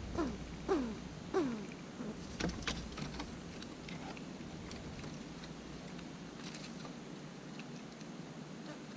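Three short calls falling in pitch, about half a second apart, then a run of light clicks and taps as eastern gray squirrels scrabble and feed at avocado on a concrete slab.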